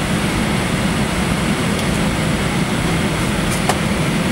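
Steady jet engine and cabin noise inside an airliner as it taxis on the ground, a low even rumble.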